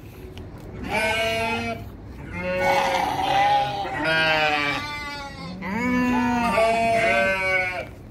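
Sheep and goats in a pen bleating: several long, wavering calls, some overlapping, one after another.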